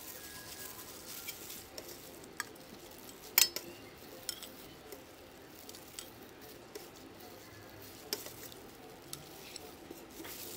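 A metal ladle clinking against a glass bowl and pot as clear agar jelly liquid is ladled over fruit, with a faint pouring hiss. The clinks come every second or so, and a sharp one about three and a half seconds in is the loudest.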